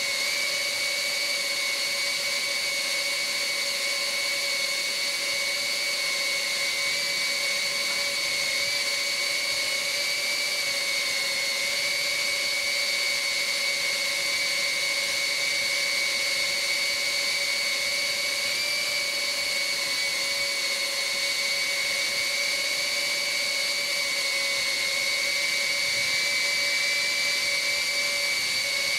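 Mobula tiny-whoop FPV micro drone's motors and propellers whining at a steady high pitch over a hiss, holding an even throttle.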